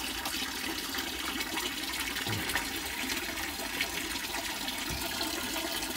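A thin stream of water pouring into a plastic fish tank, a steady splashing trickle, with a couple of faint knocks.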